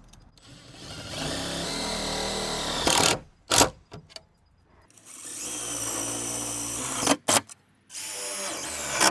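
Cordless power drill driving self-tapping screws into an aluminium extrusion: three steady motor runs, each ending in a couple of sharp clicks as the screw seats.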